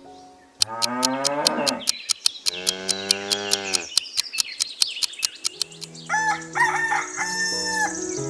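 Two long cow moos over background music with a fast ticking beat, followed by short clucking calls near the end.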